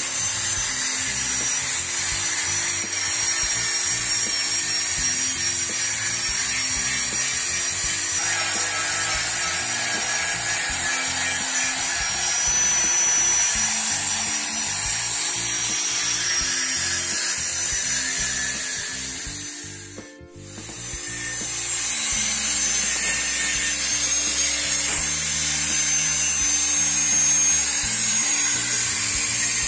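Electric angle grinder running against rusty steel tube, a high whine over a steady hiss that wavers slightly in pitch as it bears on the metal. This is grinding the rust off a steel truss frame to prepare it for repainting. The grinder stops briefly about two-thirds of the way through and then runs again.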